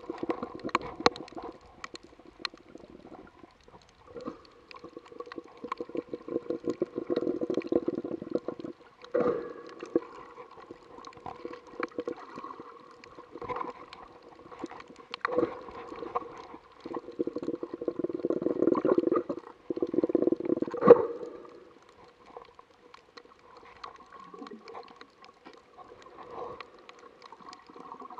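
Underwater sound picked up by an action camera below the surface while snorkeling over a coral reef: a muffled rush of moving water that swells loud twice, with scattered clicks and crackles and a faint steady hum underneath.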